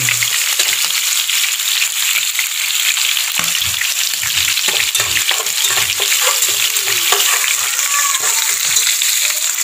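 Minced shallots sizzling in hot oil in a large aluminium pot, stirred with a metal slotted turner. From about three and a half seconds in, the turner knocks and scrapes against the pot in repeated strokes, about two a second.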